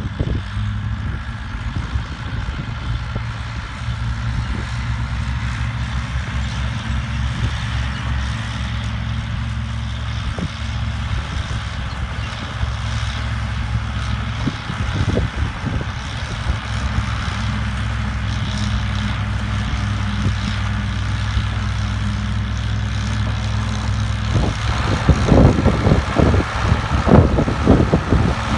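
Diesel farm tractors running steadily under load, driving forage choppers that cut grass for silage. Near the end the nearer tractor, a New Holland 5610, passes closer and its engine and chopper grow louder and rougher.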